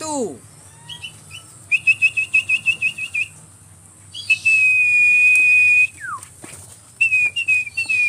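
A person whistling a high tune: a quick warbling trill, then one long steady note, then a few short falling notes near the end.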